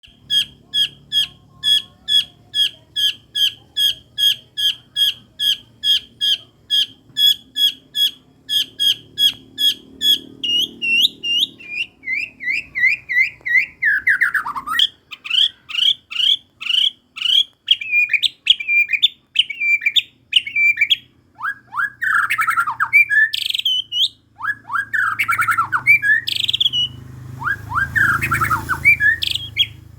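White-rumped shama (murai batu) singing in imitation: first a steady run of sharp, evenly spaced descending calls, about two or three a second, in the manner of a tengkek buto, then about ten seconds in a switch to faster, varied chattering phrases in the manner of a prenjak (prinia). This is the kind of lure recording played to set a murai batu singing.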